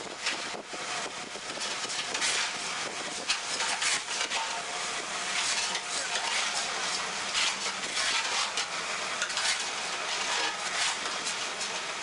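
Long-handled hoe scraping and dragging through damp, gritty paving-block mix on a concrete floor: a continuous rough scraping made of many short strokes.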